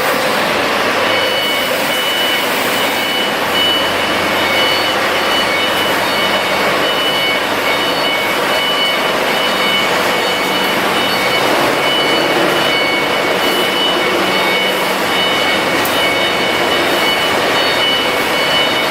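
900 kVA Cummins diesel generator set running steadily under a loud, even engine noise, with a few steady high-pitched whine tones coming in about a second in.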